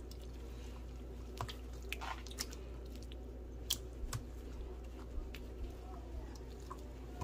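Faint wet squishing and sticky clicks of raw fish fillets being worked by hand in ginger-garlic paste and tamarind paste, over a steady low hum.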